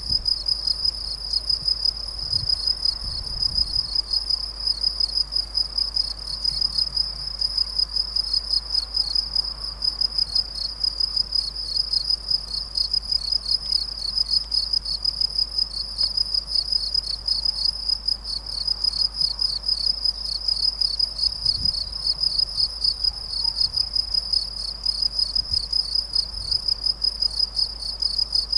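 A cricket chirping continuously, a high, clear tone repeated in a fast, even series of pulses.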